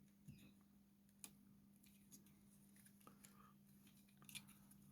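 Near silence with a faint steady hum and a few faint, scattered clicks and taps from handling a small plastic toy-car package.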